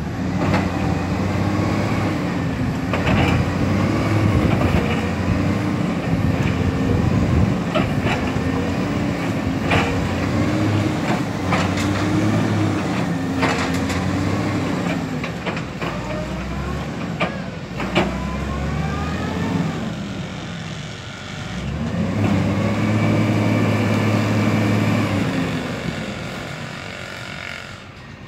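Truck diesel engines revving hard under load as one dump truck tries to tow another out of deep mud, the engine note wavering as the driver works the throttle. The revs ease off a little past the middle, come up again, then fall away near the end, with several sharp metallic clanks along the way.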